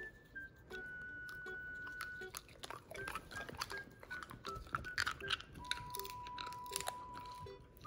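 A dog chewing a homemade dried duck gizzard treat: a run of crunches and clicks from about two seconds in, over a simple tune of background music.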